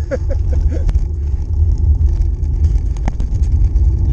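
Steady low wind rumble on a handlebar-mounted camera's microphone as a bicycle rides over cracked asphalt, with a few short pitched sounds in the first second and sharp clicks about a second and about three seconds in.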